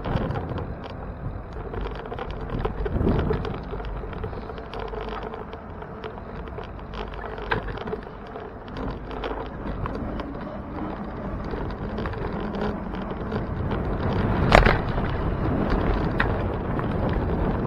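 Riding a bicycle through city traffic with the camera mounted on the bike: steady road and wind noise, frequent small rattles and clicks from the bike over the pavement, and cars passing in the next lane. A sharp knock, the loudest sound, comes about fifteen seconds in.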